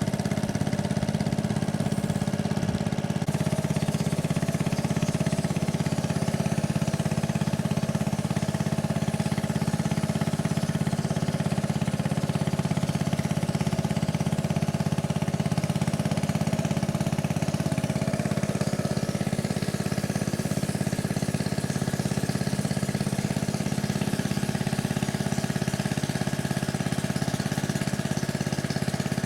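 A small motorboat's engine running steadily at an even speed, a constant low hum with the rush of water around the hull.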